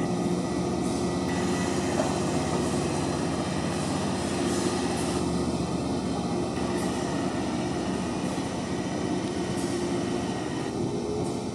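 Electric train running: a steady rumble of rail noise with a couple of held low tones, and a slight rising tone near the end.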